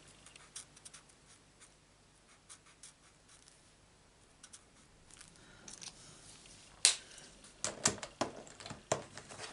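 Faint scratching of a marker nib colouring a small stamped image on card, then about seven seconds in a sharp click followed by a few lighter clicks and knocks as the marker is put away.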